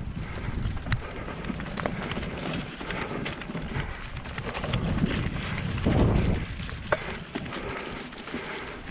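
Mountain bike riding a rough dirt trail: continuous crackle of the tyres with many sharp clicks and knocks from the bike, and a low rumble of wind on the microphone that swells about six seconds in.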